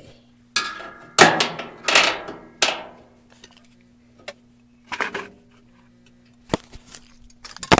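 Metal clanks and scrapes from the tub suspension spring and sheet-metal parts of a Maytag top-load washer as the spring is worked onto its hook. A cluster of clattering hits comes in the first three seconds, then a few single sharp knocks.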